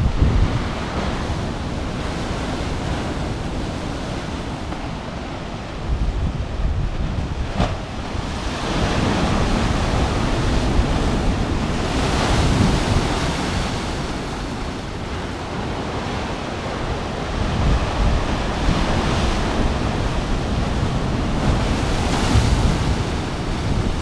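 Sea waves crashing onto rocks and washing back in repeated surges, one of the biggest breaking about halfway through, with wind buffeting the microphone in a low rumble.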